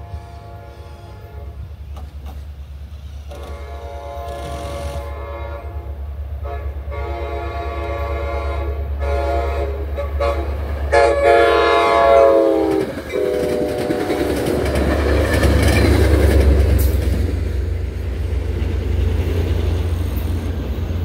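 A diesel-hauled New Jersey Transit Atlantic City Line train approaches a grade crossing sounding its horn in a series of long blasts, with the engine's steady low drone underneath. About 12 seconds in, the horn's pitch drops as the locomotive passes. The horn then gives way to the rising rumble of the train going by, loudest a few seconds later.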